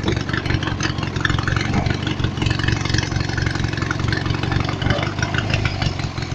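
Riding lawn mower's small engine running at a steady pitch under load while climbing a hill, driving a belt-driven alternator; the governor holds the revs, with no noticeable power loss.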